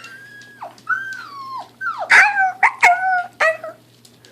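Newborn puppies whimpering: a run of about six high-pitched, sliding whines, the loudest around the middle.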